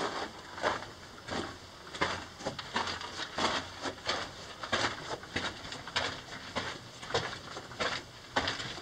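Footsteps on a rocky, gravel-strewn mine-tunnel floor between rail tracks, a steady walking pace of roughly one step every two-thirds of a second.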